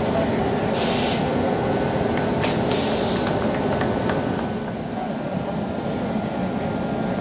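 Steady hum of a WAP7 electric locomotive standing with its auxiliary machinery running. Two short hisses of released compressed air come about one second and three seconds in.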